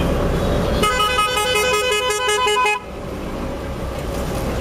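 A vehicle's musical horn sounds for about two seconds, warbling rapidly back and forth between two pitches. It plays over the steady road and engine noise of the moving taxi, which drops suddenly as the horn stops.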